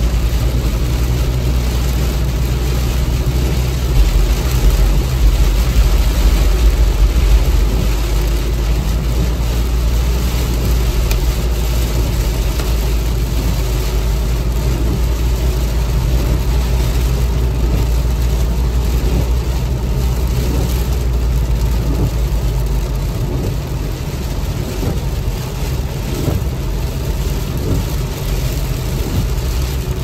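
Inside a car driving in heavy rain: a steady low road and engine rumble under a broad hiss of rain and tyre spray on the car. The low rumble is heaviest a few seconds in and eases about three quarters of the way through.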